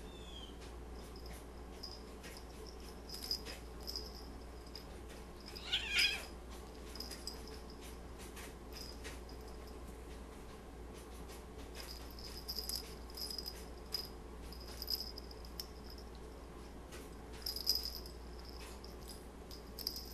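Two cats play-wrestling in a fleece cat bed: soft scuffling and rustling with scattered light clicks, and a brief high-pitched cat squeak about six seconds in.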